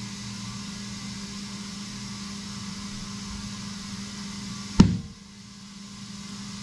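Compressed air hissing into a 42x13.5R17 Super Swamper Irok tyre on a beadlock wheel through its core-less valve stem, over a steady hum. About five seconds in comes one loud bang as the tyre's back bead pops onto the rim and seats, and the hiss then drops away.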